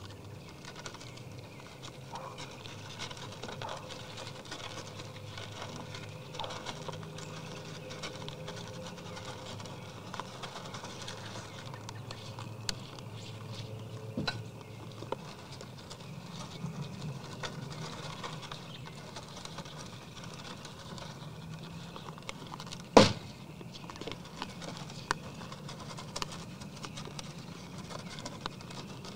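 Whitetail deer eating from a feed trough: many small crunching and clicking sounds of feeding, with one sharp knock about three-quarters of the way in.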